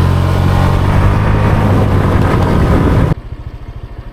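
Motorbike engine running at speed with heavy wind rush. About three seconds in it cuts abruptly to a much quieter, even putter of the engine at low revs.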